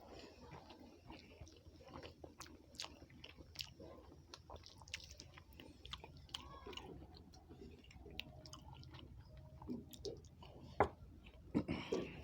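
A person chewing a rice-and-curry meal, with soft wet mouth clicks and smacks scattered throughout and a few louder clicks near the end.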